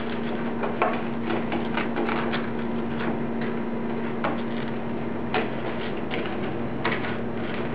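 Churros being rolled in cinnamon sugar on a plastic plate: light scraping with scattered small clicks and taps, over a steady background hum.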